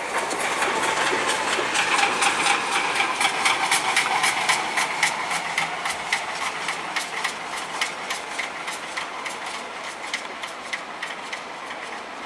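Tubize 2069 steam locomotive pulling away, its exhaust beating in quick, even chuffs, about five a second, over a steady steam hiss. Loudest a few seconds in, then slowly fading as it moves off.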